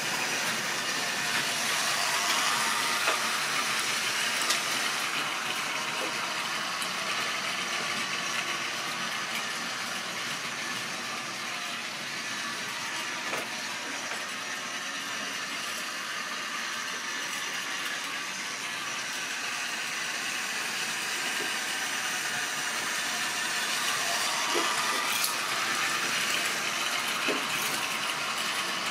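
Model railway train running round the track: a steady whirr of motor and wheels on the rails, with a few sharp clicks over rail joints. It is louder at the start and again near the end as the train passes close by.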